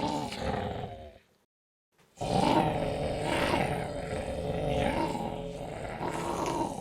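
A person's voice imitating zombie growls: one growl fading out about a second in, a short silence, then a longer growl whose pitch wavers up and down.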